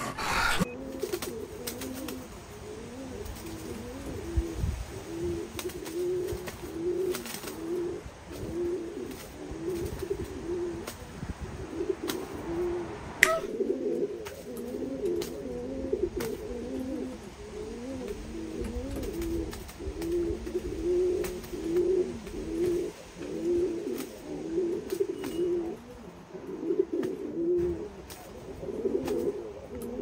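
Doves cooing over and over, a low call repeating about once a second, with a single sharp click about thirteen seconds in.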